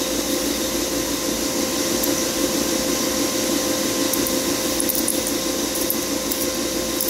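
Steady machinery hum with a constant mid-pitched tone from the running geothermal heat pump and loop equipment, with faint light ticks from handling a brass auto air bleeder fitting.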